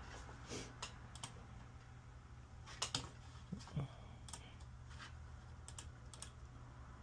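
Typing on a computer keyboard: irregular key clicks, with a few louder taps around three and four seconds in, over a faint steady low hum.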